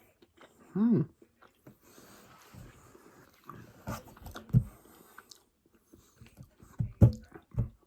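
A person chewing a chocolate-covered cicada, with irregular crunches from the crisp insect body. A short voiced hum comes about a second in.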